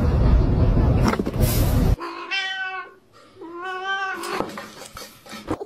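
A loud rumbling noise for about the first two seconds, then a domestic cat meowing twice, each meow drawn out for nearly a second and rising then falling in pitch.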